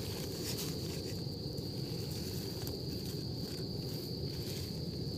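An insect's steady, high, single-pitched drone over a low rumbling noise, with a few faint scratches as dry forest soil is dug with a knife.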